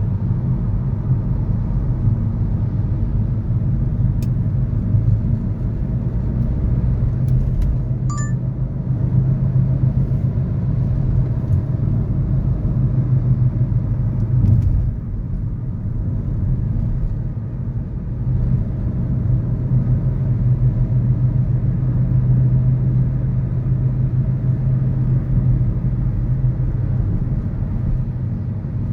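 Steady low rumble of city road traffic, with car engines and tyres blending into one continuous drone that eases off briefly about halfway through.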